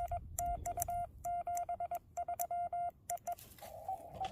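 Morse code from a portable ham radio: a steady beep keyed in quick dots and dashes, with a sharp click at each element. About three and a half seconds in, the keying stops and the receiver's steady hiss returns, with a couple of faint beeps in it.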